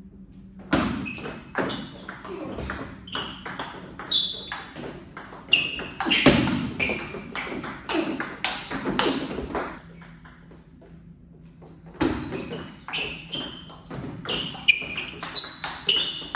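Table tennis ball clicking off the paddles and bouncing on the table in quick rallies. One rally runs for most of the first ten seconds; after a pause of about two seconds another rally starts.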